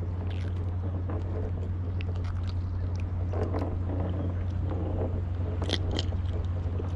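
A steady low hum throughout, with scattered small clicks and scrapes of fishing gear being handled in a plastic kayak while a hooked fish is dealt with, and a faint voice in the background.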